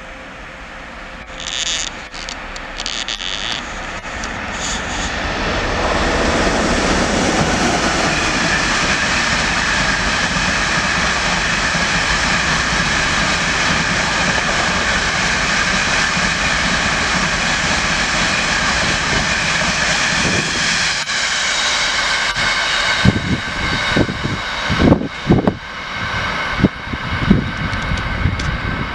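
Long freight train of covered wagons, hauled by an electric locomotive, passing through at speed: a steady rushing rumble of wheels on rail that builds over the first few seconds and holds. A run of sharp clattering knocks from the wheels comes near the end.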